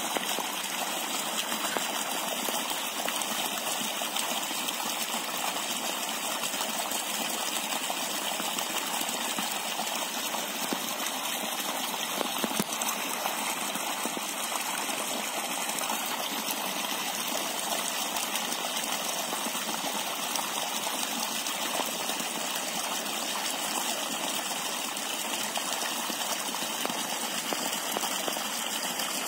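Water gushing steadily from an inlet pipe and splashing into a trout pond.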